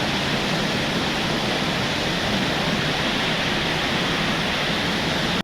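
Waterfall: steady, dense rushing of falling water, cutting off abruptly at the end.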